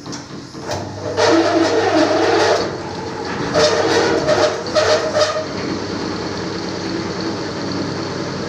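Electric carpet-washing machine running: a motor hum comes on about a second in and holds steady, with two louder stretches of noisy whirring and rushing over the next few seconds.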